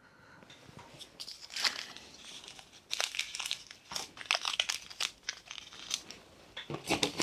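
Small food sachets and packets crinkling as they are picked through and sorted by hand on a table, in irregular crackles.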